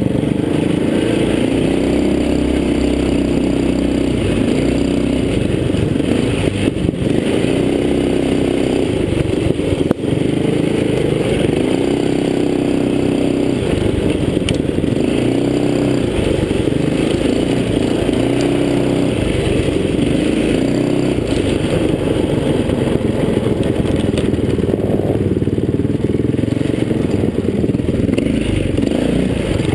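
Mini bike's small engine running, its pitch rising and falling again and again as the throttle is opened and eased along a bumpy dirt trail, with the bike rattling over the rough ground.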